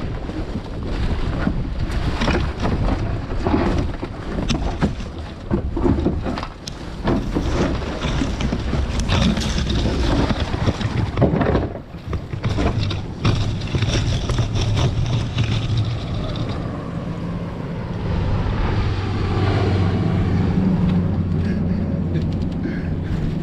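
Tree branches and brush rustling, scraping and knocking against a boat as a weighted brush pile is worked over the side. About two-thirds of the way in the clatter dies down under a steady low boat-motor hum, with wind on the microphone.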